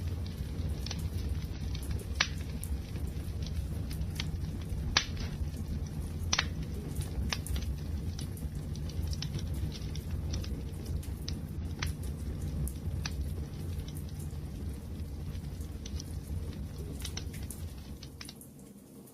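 Wood fire crackling: irregular sharp pops and snaps over a low steady rumble of the flames.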